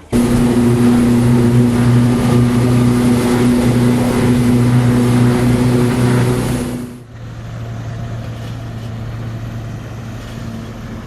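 Motorboat engine running steadily under way with a loud rush of wind and water. It cuts off abruptly about seven seconds in, leaving a quieter steady engine hum.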